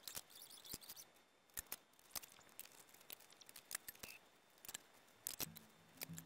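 Faint scattered clicks and cloth rustling as a rag wipes down a forged steel rod. Music fades in near the end.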